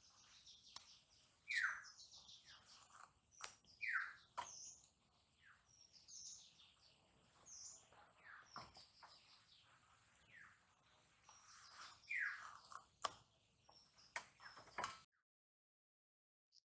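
Birds calling, with several clear downward-sliding calls and shorter high notes, over a few sharp clicks from a bottle gourd being cut by hand with a knife. Near the end the sound cuts out to silence.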